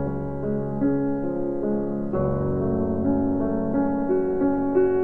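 Background music played on keyboard: a melody over held chords.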